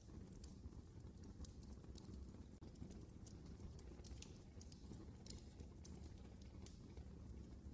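Wood fire crackling in a fireplace: irregular sharp pops and snaps, several a second, over a soft steady low rumble of the flames.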